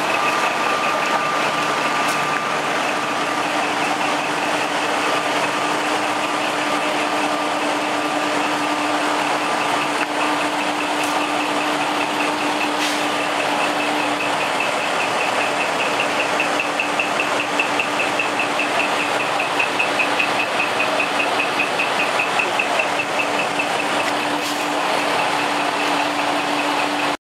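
Parked trucks' engines running, with a steady low hum and a fast, high-pitched pulsing beep repeating throughout.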